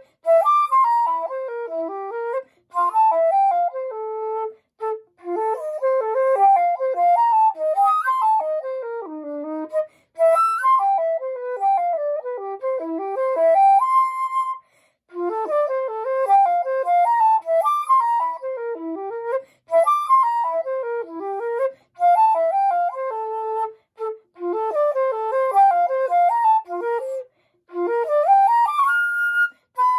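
Silver concert flute played solo and unaccompanied: flowing runs of quick notes rising and falling, broken by brief pauses every few seconds.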